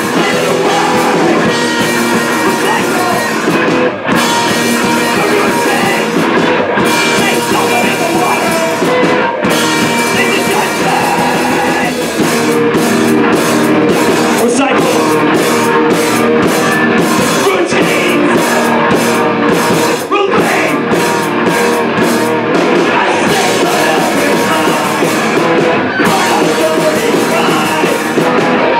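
Live punk rock band playing loud on electric guitars, bass guitar and drum kit, with a stretch of choppy, stop-start hits about halfway through.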